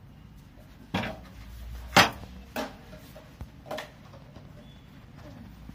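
Four sharp metallic knocks and clinks from handling the metal parts of a stainless-steel gas stove, the loudest about two seconds in.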